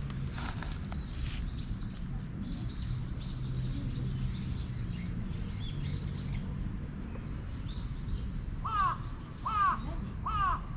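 A crow cawing three times in quick succession near the end, each caw a short arched call, over a steady low background rumble.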